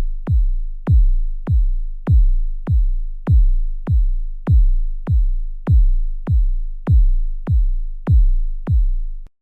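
Suspense sound effect of deep electronic bass booms: kick-drum-like hits, each dropping quickly in pitch into a long low rumble, repeating evenly about every 0.6 s and cutting off abruptly just before the end.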